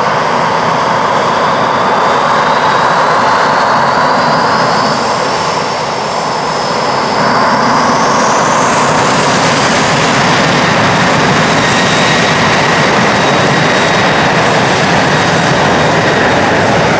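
Boeing 737-700's twin CFM56-7B turbofan engines spooling up for takeoff: a loud steady roar under a whine that climbs in pitch, then rises sharply about eight to ten seconds in as the engines reach takeoff thrust.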